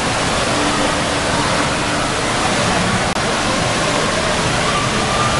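Steady rush of running water at a water-park play structure and slides, with faint children's voices underneath.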